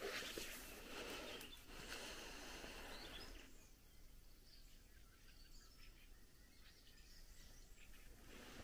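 Faint rural evening ambience: soft rustling for the first three seconds or so, then near silence with scattered faint, distant bird chirps.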